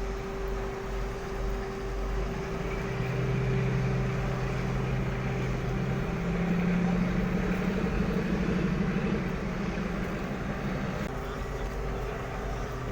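Large diesel engine running, its pitch and loudness rising about three seconds in and again around six seconds, then dropping back near eleven seconds, as when an engine is revved under load.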